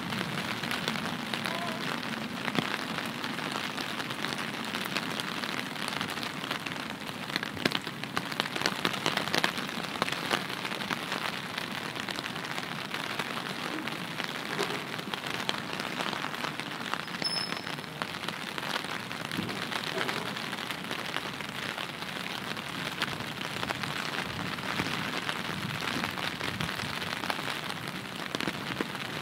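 Steady rain falling and striking surfaces, with many small drop impacts ticking through it. A brief high tone sounds once about 17 seconds in.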